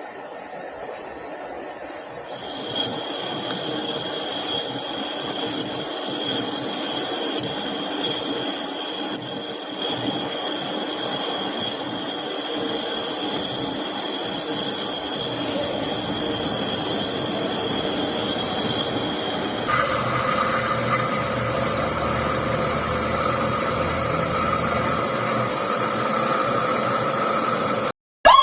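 A machine running steadily with a thin high whine. About two-thirds of the way through, its sound changes to a different set of steady tones, then it cuts off abruptly.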